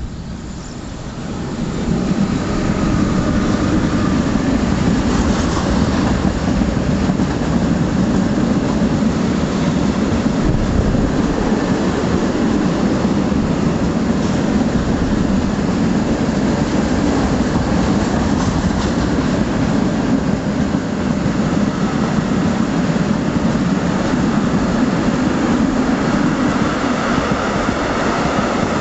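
Freight train of tank wagons passing close by, its steel wheels running on the rails in a loud, steady noise. The noise swells about two seconds in as the wagons come alongside, then holds level.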